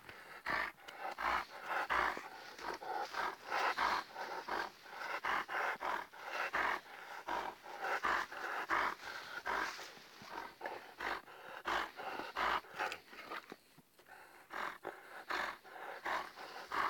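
Alaskan Malamutes panting close up: quick, rhythmic breaths at about three a second, with a brief pause near the end.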